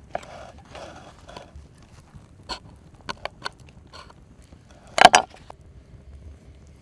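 Scattered sharp clicks and knocks, with a soft rustling in the first second or so; the loudest is a quick cluster of knocks about five seconds in.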